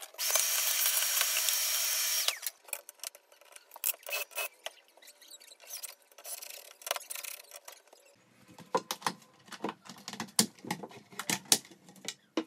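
A cordless drill with a hinge-cup boring bit runs steadily for about two seconds and stops. Then come light scattered clicks and taps of hinge hardware and tools being handled, growing busier and fuller near the end.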